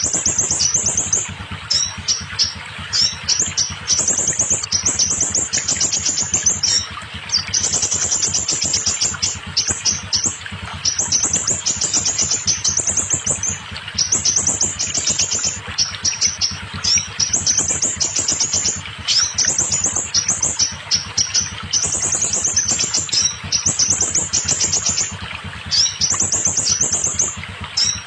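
Scarlet minivet song: fast runs of high, sharp notes in bursts of a second or two, repeated one after another with short gaps.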